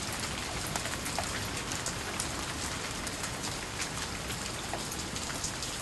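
Steady rain falling, with the ticks of single drops scattered through it.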